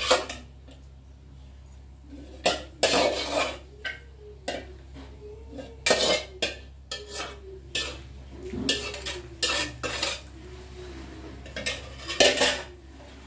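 Metal spoon scraping and clinking inside a stainless steel cooking pot as soup and chicken are scooped out, in irregular strokes with some squeaky scrapes between the clinks.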